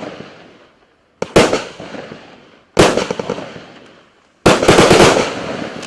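Consumer firework cake ("Bubentsy", 36 shots of 0.8-inch calibre) firing: three loud bangs about a second and a half apart, each dying away. The last is followed by a quick run of sharp cracks.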